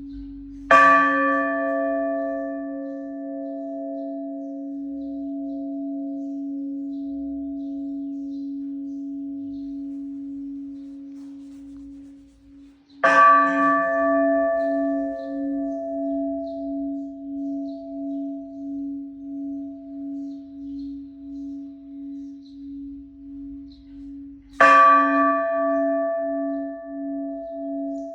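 Church bell struck three times, about twelve seconds apart. Each stroke rings on for many seconds, its hum pulsing and wavering as it dies away.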